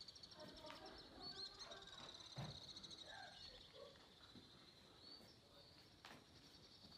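Faint steady insect chirping, a high pulsing trill that runs on without a break. Faint voices sit behind it, with a soft knock about two and a half seconds in and another about a second before the end.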